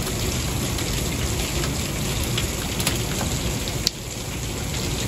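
Heavy rain mixed with hail pouring down onto a wooden deck and patio: a steady, dense downpour with scattered sharp ticks of hailstones striking, one louder tick just before four seconds in.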